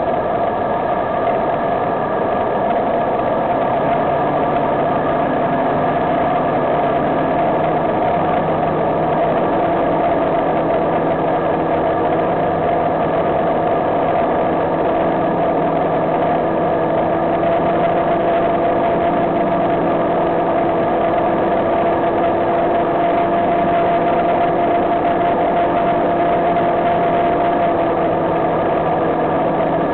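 Ultralight trike's engine running at steady power, with wind rushing past, as the trike flies a low pass a few feet above a grass runway. A deeper engine note joins about four seconds in and then holds.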